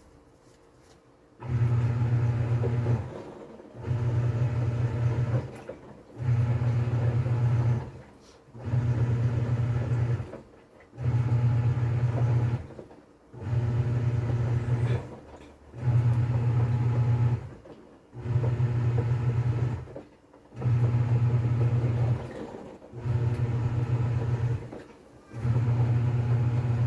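TCL 7.5 kg top-load washing machine's motor driving the pulsator in the wash stage: a low hum that runs for about two seconds, stops briefly and starts again, about every two and a half seconds, as the pulsator turns back and forth. It starts about a second and a half in, after a short pause.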